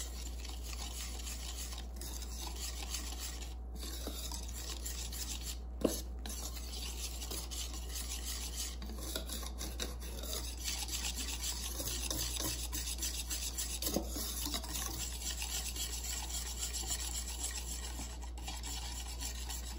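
Wire balloon whisk beating an egg and cornstarch batter by hand in a bowl: a steady scraping and swishing of the wires against the bowl and through the batter, with one sharper tap about six seconds in.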